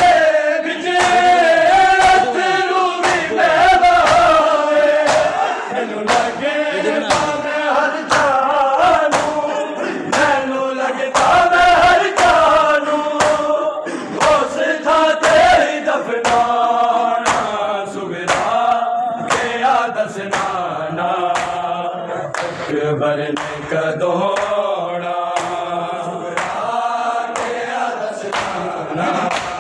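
A crowd of men chanting a mourning noha together, with hands slapping chests in matam to keep a steady beat under the voices.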